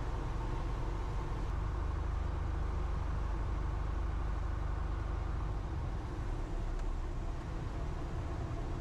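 Cessna 172B's Continental O-300 six-cylinder engine and propeller running steadily in flight on final approach: a low, even drone.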